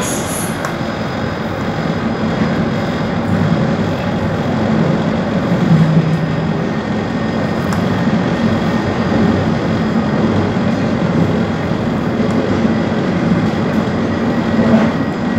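Steady running noise of a moving tram heard from inside the passenger cabin: a continuous low rumble and hum, swelling slightly now and then.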